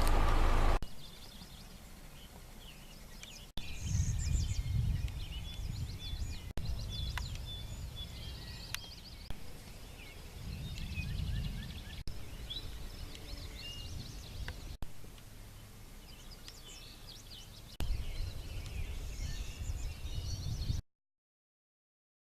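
Songbirds chirping and singing over a low rumble that swells and fades. A loud steady noise in the first second stops abruptly, the sound breaks off sharply at several points, and it drops to dead silence near the end.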